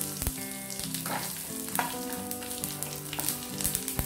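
Tempering of mustard seeds, urad dal, dried red chillies, curry leaves and garlic sizzling in hot oil in an aluminium frying pan, with several sharp clicks and knocks of a utensil against the pan.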